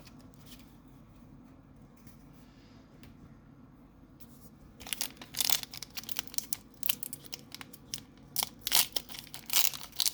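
Foil wrapper of a Pokémon Sword and Shield booster pack being crinkled and torn open, a quick run of sharp crackles starting about five seconds in.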